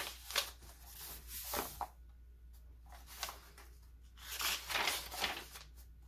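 Paper pages of a handmade journal rustling as they are turned and smoothed by hand, in two bouts: one in the first two seconds and another about four and a half seconds in.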